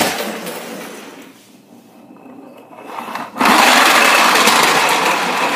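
Radio-controlled toy truck's small electric motor whining and its wheels running on a wooden floor. The sound fades over the first couple of seconds, then starts again loud and steady about three and a half seconds in.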